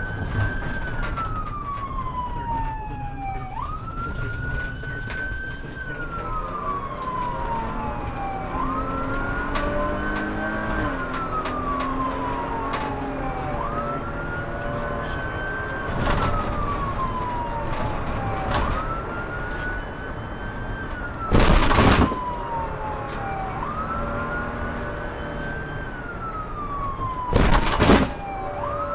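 Police siren on a slow wail, each cycle rising quickly and then falling slowly, repeating about every five seconds over the engine and road noise of a moving patrol car. Two short, loud bursts of noise cut across it, about three quarters of the way in and again near the end.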